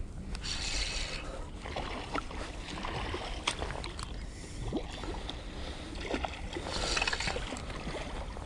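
Water lapping and splashing close to the microphone, with a steady wind rumble and a few small clicks; the hiss swells twice, about half a second in and again near the end.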